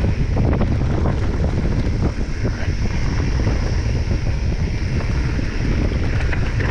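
Giant Reign E+ electric mountain bike riding fast down a dirt singletrack: wind buffeting the microphone over the rumble of tyres on dirt, with steady crackles and rattles as the bike bounces over the trail.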